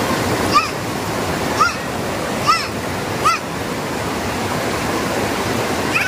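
Rushing water of a rocky stream and waterfall cascade, a steady loud rush. Four short, high-pitched calls that rise and fall in pitch cut through it, about one a second over the first three and a half seconds.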